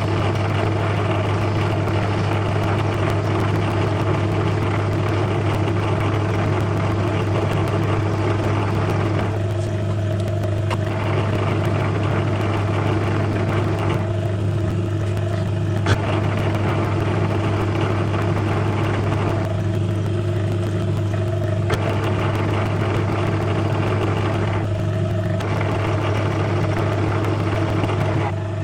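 Small metal lathe running with a steady motor hum while turning a miniature pin, the cutting noise dropping away briefly four times as the tool comes off the work.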